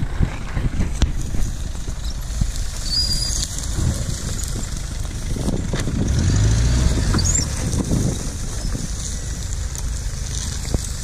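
Mitsubishi L200 pickup's engine running as the truck drives past close by and heads off down a rough slope, loudest as it passes about six seconds in. Wind buffets the microphone throughout.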